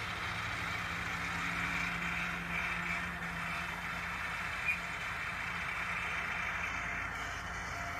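Kubota tractors running steadily at work speed while their Kuhn disc mower-conditioners cut and condition Italian ryegrass: a constant engine hum under the hiss and whir of the spinning cutter discs.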